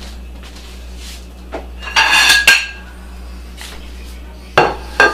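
Dishes clattering for about half a second, about two seconds in, with a ringing tone. Near the end come two sharp clinks as a ceramic plate is set down on the counter.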